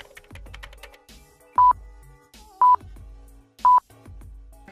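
Short, loud electronic beeps at one steady high pitch, evenly spaced about a second apart, four in a row, over faint clicking and quiet background music.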